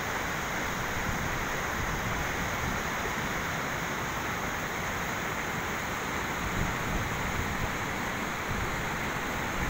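Steady rushing of a river's flowing water, with wind rumbling on the microphone.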